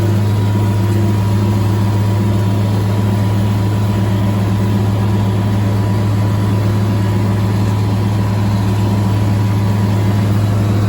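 Farm tractor engine running at a steady speed while pulling a bush hog rotary cutter, a loud, even, low drone that does not change.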